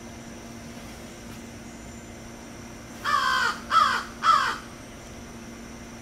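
A crow cawing three times in quick succession about three seconds in, each caw dropping in pitch at its end.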